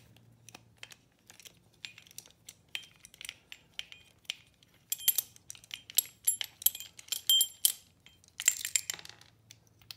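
A 13 mm ratchet socket wrench with extension clicking in short runs of rapid ticks, with small metallic clinks, as it unscrews the plastic nut that holds a brass bicycle bell to its plastic body. The clicks are scattered at first and come in dense runs from about halfway through.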